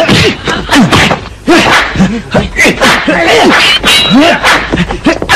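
Fight-scene sound effects: a rapid series of punch and kick whacks, mixed with short grunts and cries from the fighters.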